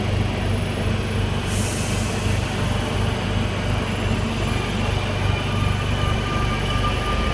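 A train running, likely a metro carriage heard from on board: a steady low rumble with faint thin squealing tones from the wheels and a short hiss about a second and a half in.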